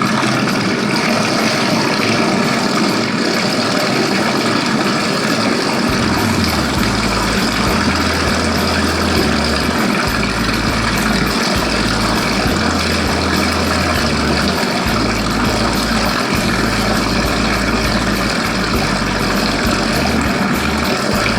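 Electric dough mixer machine for cracker dough running steadily, a continuous mechanical noise with a low hum that comes and goes from about six seconds in.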